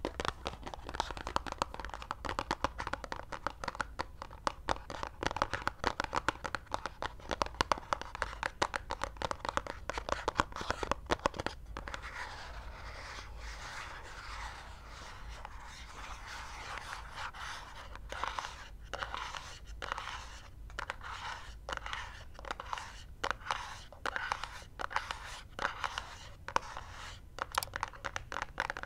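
Long fingernails scratching and tapping on a small white cardboard Apple box. Rapid, dense scratching at first gives way to a smoother rubbing stretch about halfway. In the last ten seconds come separate taps, about two or three a second.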